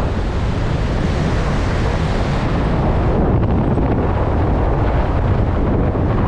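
Strong wind blowing across the microphone: a loud, steady noise, heaviest in the low end.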